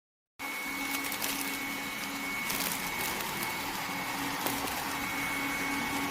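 A small machine running steadily: a continuous whir over a hiss, with a constant high whine and a lower hum, starting abruptly about half a second in.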